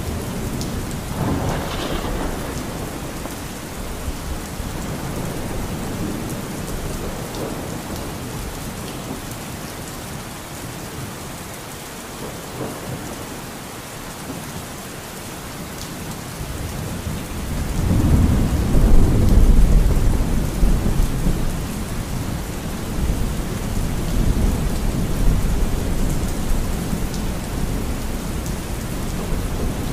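Steady rain, with a low roll of thunder swelling up about 18 seconds in and fading over a few seconds.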